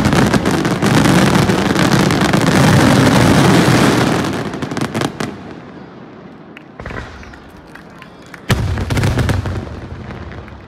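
Daytime fireworks: shells bursting in the air in a dense, continuous barrage of rapid bangs and crackling. After about four seconds it thins out to scattered pops, with one loud bang a little over two-thirds through followed by a short burst of crackling.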